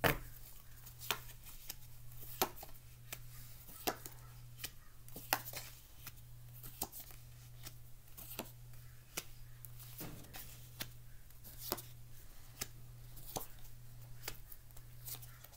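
Tarot cards being shuffled and dealt onto a tabletop: sharp card snaps and taps, roughly one a second, over a steady low hum.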